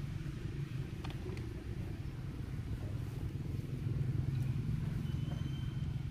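Steady low rumble, with a few faint clicks about a second in.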